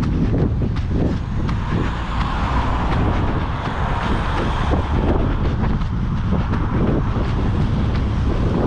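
Wind buffeting the microphone of a head-mounted action camera during an outdoor run, a steady low rumble, with regular running footfalls. A rushing noise swells and fades over a few seconds in the middle.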